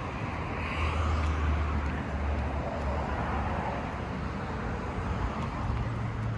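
Outdoor traffic ambience: a steady hiss of road noise with a low engine hum that swells about a second in and shifts pitch near the end.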